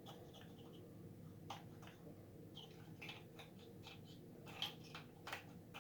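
Near silence with faint scattered clicks and light scrapes of small objects being handled. Slightly clearer clicks come about a second and a half in, and twice near the end.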